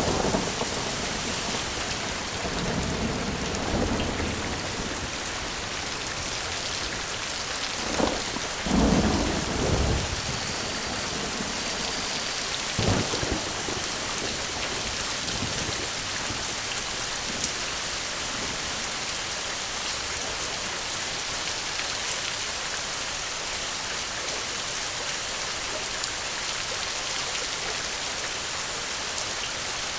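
Steady rain with thunder: a low rumble a few seconds in, a sharp crack about eight seconds in that rolls into a longer rumble, and another short crack a few seconds later, then rain alone.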